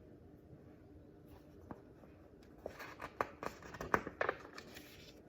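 Paper rustling and a few soft clicks from a picture book's pages being handled and turned, starting a couple of seconds in and stopping shortly before the end.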